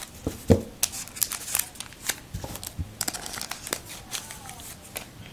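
Trading card pack wrapper crinkling and tearing as a new pack is opened, with cards handled, making many irregular sharp crackles and clicks.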